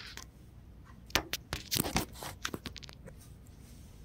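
Rustling and handling noise: a quick cluster of sharp crackles and taps in the middle as the recording device is moved about and set down on a bed.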